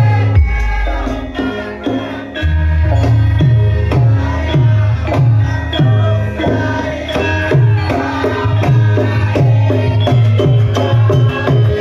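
Javanese gamelan accompaniment for a lengger masked dance: a kendang drum keeps a steady beat of deep strokes, about two a second, under ringing metallophone notes. A deep gong-like tone rings under the music from about half a second in for two seconds.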